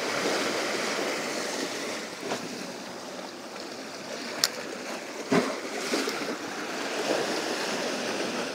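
Sea surf washing against the rocks, a steady rush of water. A sharp click about four and a half seconds in and a knock just after it stand out over the wash.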